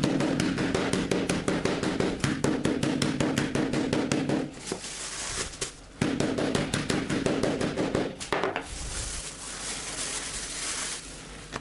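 Wooden meat mallet pounding slices of pork loin inside a plastic bag on a wooden cutting board: rapid even blows, about five a second, in two runs with a short pause a little after four seconds, stopping about eight seconds in. After that the plastic bag rustles as the flattened meat is handled.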